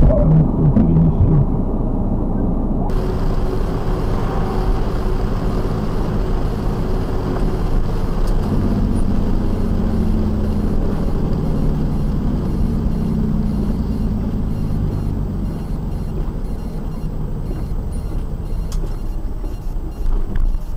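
Steady engine drone and tyre noise on a wet road, heard from inside a moving vehicle's cab. After a low rumble, it sets in abruptly about three seconds in.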